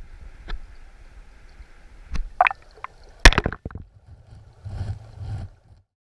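Clear mountain stream heard through a camera held underwater: a muffled low rumble of moving water with several sharp knocks and clicks, the loudest about three seconds in. It cuts off suddenly just before the end.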